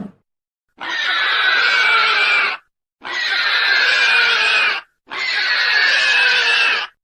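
Hollywood Edge stock dinosaur sound effect: three near-identical squealing calls, each about two seconds long with a slightly falling pitch, separated by brief silences.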